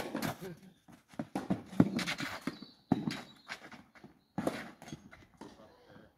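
Tennis rally: an uneven series of sharp pops from racket-on-ball hits and ball bounces on a clay court. The loudest pops come at the very start and a little under two seconds in.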